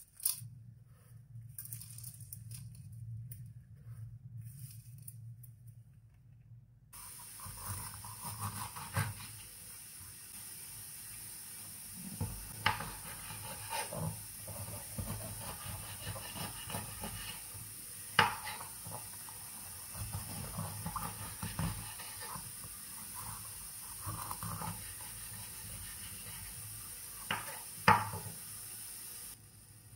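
Knife slicing bell peppers on a wooden cutting board: scattered sharp knocks as the blade hits the board, the loudest about two-thirds of the way in and near the end, over a steady hiss. The first several seconds hold only a low hum.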